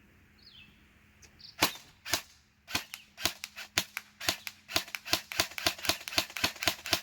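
Airsoft gun firing in semi-auto, about twenty single shots in quick succession, spaced out at first and quickening to around four a second. The semi-auto fire is now cycling properly.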